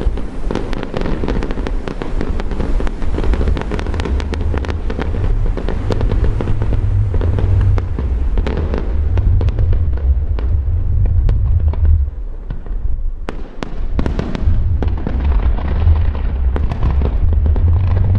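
Fireworks display: a dense, continuous barrage of deep booms from aerial shells with many sharp crackles over it, easing briefly about two-thirds through before building again. The reports echo off the mountain behind.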